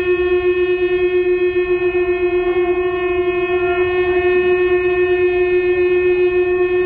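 Conch shell (shankha) blown in one long, steady note.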